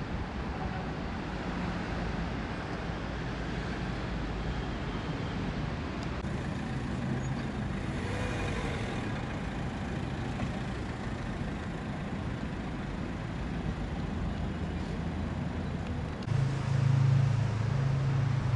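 Outdoor street traffic noise, a steady rumble of passing vehicles, with one vehicle's engine louder for about two seconds near the end.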